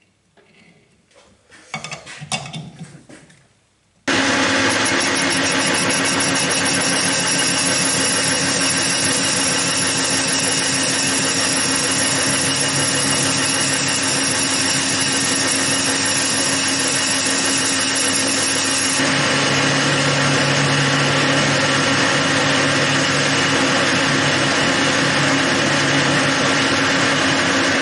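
Metal lathe running and facing a large metal disc held in a four-jaw chuck: a loud, steady machine sound of the spindle drive with the tool cutting, with a few steady tones in it. It starts abruptly about four seconds in, after faint clicks of hands at the chuck, and a deeper hum joins about two-thirds of the way through.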